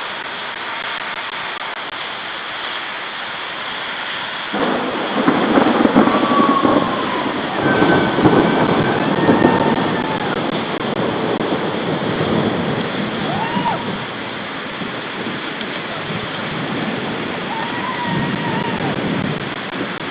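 Thunder over steady rain hiss: a roll of thunder breaks in suddenly about four and a half seconds in, swells for several seconds and slowly dies away, with a smaller rumble near the end.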